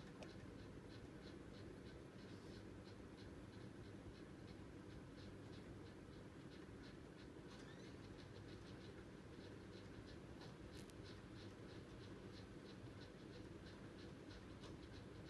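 Near silence: room tone with a faint, quick ticking, about three ticks a second.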